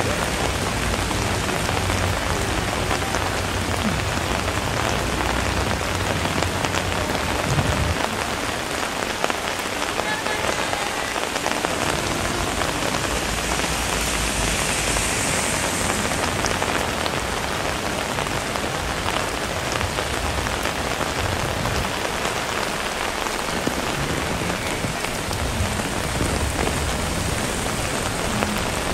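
Steady rain falling, an even hiss throughout, swelling briefly about halfway through.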